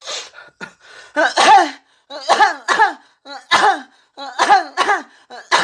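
A young woman making coy, put-on little coughs. They come mostly in pairs, about one pair a second, and each cough drops in pitch.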